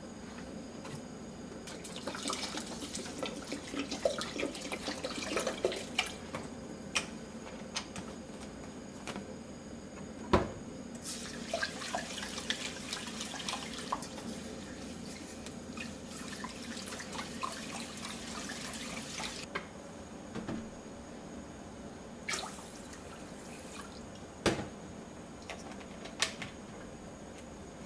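Rice being washed by hand in water in an aluminium hagama rice pot: water poured in from a plastic bottle, then grains swished and rubbed in the water, in two spells, with a few sharp knocks against the pot.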